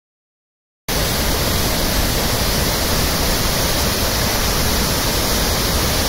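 Waterfall rushing close by: a steady, unbroken wash of falling water that cuts in suddenly about a second in, after silence.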